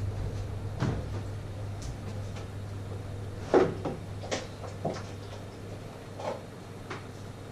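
Knocks and clatters of containers being moved about on low kitchen shelves, about six separate ones with the loudest a little past three and a half seconds in, over a steady low hum.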